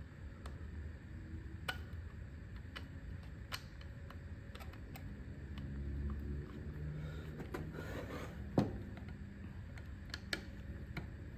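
Scattered light clicks and taps of hand tools and metal parts being handled while the muffler's T27 screws are worked on a chainsaw, with one sharper click about eight and a half seconds in.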